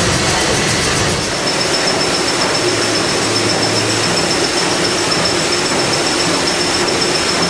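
Liberty ship's triple-expansion steam engine and engine-room machinery running steadily, a loud even din, with a thin high whine joining about a second in.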